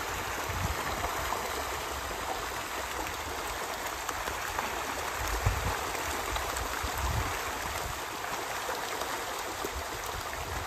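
A dense shoal of pond fish crowding the surface at feeding time, thrashing and splashing without pause in a steady wash of water noise.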